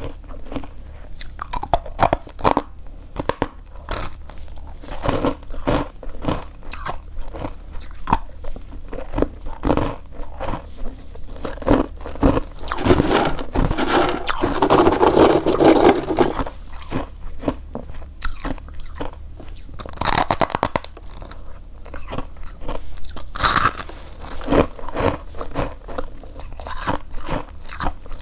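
Freezer frost crunching as it is bitten and chewed: a run of sharp crunches, with a longer, louder stretch of dense chewing about halfway through.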